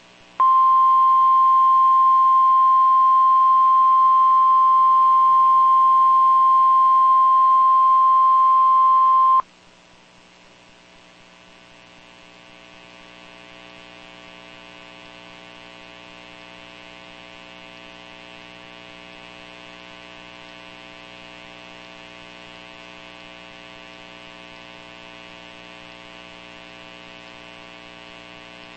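NOAA Weather Radio warning alarm tone: a single loud steady tone of about 1050 Hz held for about nine seconds, which cuts off suddenly. It gives way to a much quieter steady electrical hum with many overtones, dead air on the receiver.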